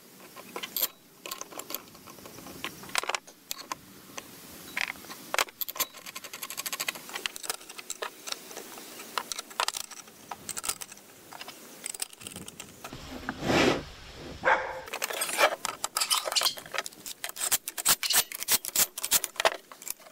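Steel bolts and parts clinking and tapping as they are fitted by hand into a steel tow roller housing. The clicks get denser in the last few seconds, when a cordless drill/driver runs the bolts in.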